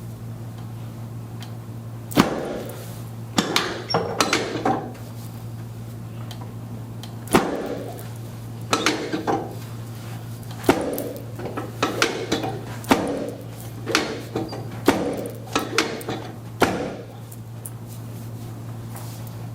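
Sharp knocks and cracks of a chiropractic adjustment, about a dozen, some in quick clusters of two or three, with rustling and creaking between them, over a steady low hum.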